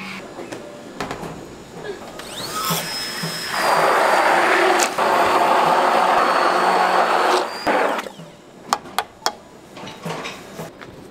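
Electric mixer motor spinning up, running steadily at high speed for about four seconds, then switching off; a few sharp clinks follow.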